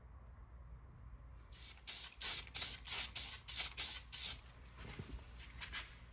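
Spray paint hissing from a nozzle in a quick series of short bursts, about three a second, with a few fainter bursts near the end: light coats of paint being sprayed onto small die-cast toy truck bodies.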